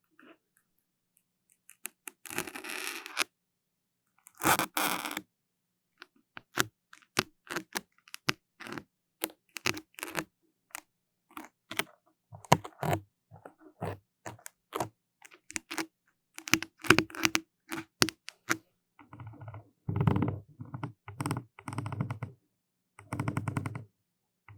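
Close-miked ASMR trigger sounds: two scratchy rubs, then many short crackles and taps, turning into dense runs of crackling with a low rumble near the end, as if something is being rubbed right on the microphone.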